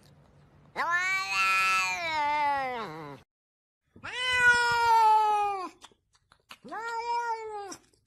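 Domestic cat giving three long, drawn-out meows, each shorter than the one before and dropping in pitch at the end.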